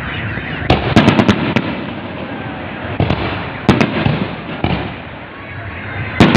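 Aerial fireworks going off: a quick cluster of sharp bangs about a second in, a few more around three to four seconds, and a loud pair near the end, over a continuous background din.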